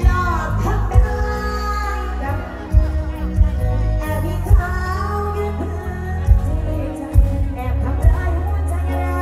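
Live band music through a PA, a woman singing over a heavy bass line with loud kick-drum thumps.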